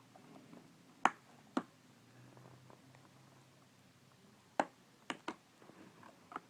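Sharp, isolated clicks, about six over a few seconds with quiet between, as a dental pick pries at the laptop keyboard's edge and its retaining tabs.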